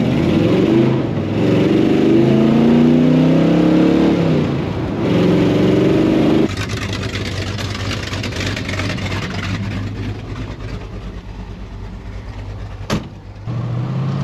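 1968 Ford F-100's 351 Windsor V8, newly fitted with an HEI electronic distributor in place of points, accelerating heard from inside the cab, its pitch climbing and dropping back a couple of times. About six and a half seconds in the sound cuts to a quieter steady engine hum with hiss, and a sharp click sounds near the end.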